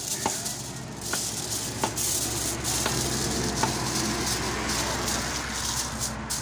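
Aluminium foil crinkling and rustling as a piece of fish is wrapped in it by hand, with scattered small crackles.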